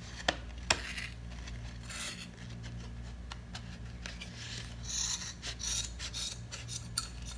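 Scissors snipping through a bundle of yarn strands wound around a cardboard strip, cutting the wraps into short lengths for a shag rug. It is a run of short rasping cuts with a few sharp clicks of the blades.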